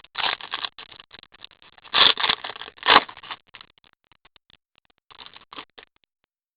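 Trading cards and pack wrappers being handled: papery rustling and scraping in short spells, loudest about two and three seconds in, dying away near the end.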